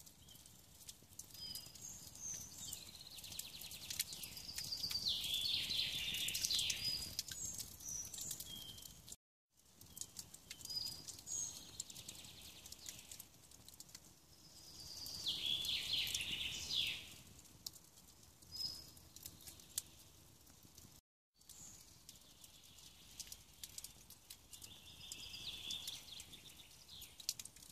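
Songbirds singing: short whistled notes and a louder trilling phrase that comes back several times.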